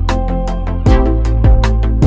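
Background music: an electronic track with a steady beat, a deep bass and a sharp hit about twice a second.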